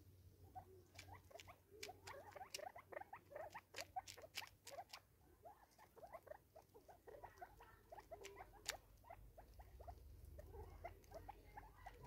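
Francolins pecking and scratching at seed on a tree stump: a faint, busy run of quick taps and scratchy clicks, densest in the first few seconds.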